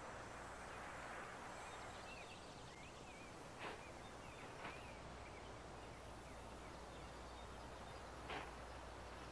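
Faint outdoor film ambience: a steady low hiss with a few soft chirps about two to three seconds in and three faint knocks spread through it.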